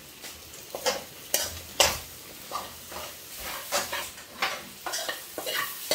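Metal spoon scraping and stirring an egg-and-salami filling in a frying pan while it sizzles, in irregular strokes a little over once a second.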